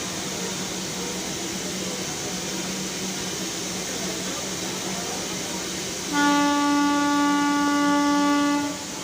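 Darjeeling Himalayan Railway toy-train locomotive sounding one steady horn blast of about two and a half seconds, starting some six seconds in, over a steady low hum.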